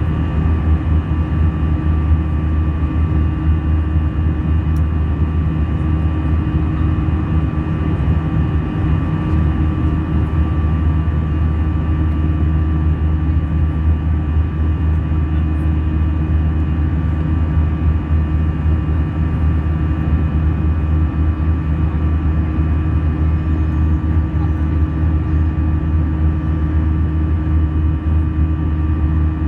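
Airbus A320 cabin noise in flight: a steady, loud engine and airflow drone with a few fixed whining tones over it, unchanging throughout.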